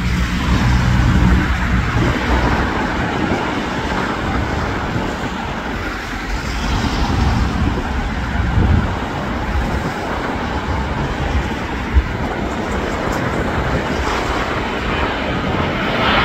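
Jet engine noise from an Airbus A350's Rolls-Royce Trent XWB engines on final approach, a steady rumble and hiss mixed with road traffic, growing louder and brighter near the end as the airliner comes close. A single sharp click about three-quarters of the way through.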